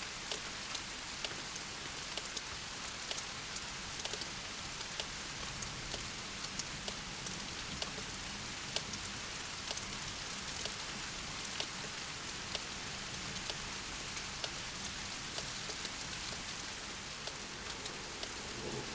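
Steady thunderstorm rain falling on a surface, with frequent sharp ticks of single drops heard through the hiss.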